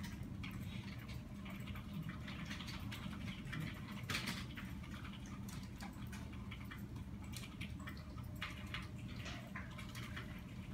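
Quiet room tone: a steady low hum with scattered faint clicks and ticks, the loudest about four seconds in.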